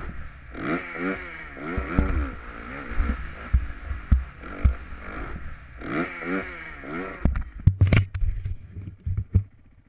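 Dirt bike engine revving up and down over and over, with wind rush over the microphone and thumps from the bike riding over rough ground. Near the end come a few sharp knocks, and then the sound fades away.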